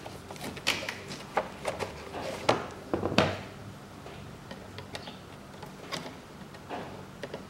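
Irregular clicks and knocks of gloved hands and a screwdriver working on plastic parts in a car's engine bay. The loudest knock comes about three seconds in.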